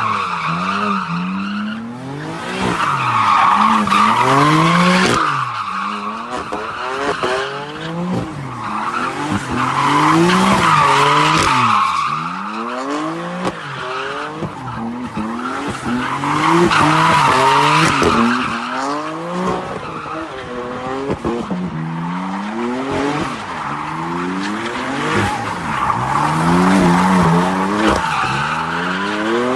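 BMW M car's engine revving up and down over and over under hard driving, while its tyres squeal in long stretches every few seconds.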